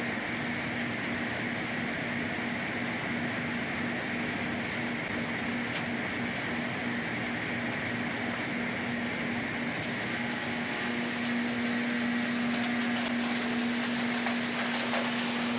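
LogRipper-300 scragg mill running, its chipping cutter heads and rip saws milling cypress logs into boards: a steady mechanical hum with a constant tone, getting a little louder about eleven seconds in.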